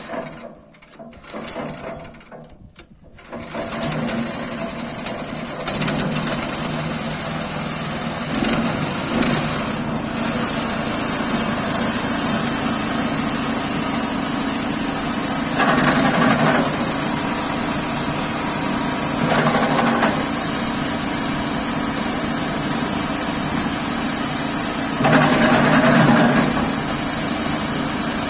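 An 18 hp WEIMA petrol engine on a branch chipper is started with a few short bursts, catches after about three seconds and settles into steady running. Three times the sound grows louder and coarser for a second or so as branches are fed in and chopped: about halfway through, a few seconds later, and again near the end.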